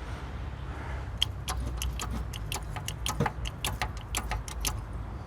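A quick run of light metallic clicks from tools working on the car's rear suspension, about four or five a second, starting about a second in and stopping near the end, over a faint steady hum.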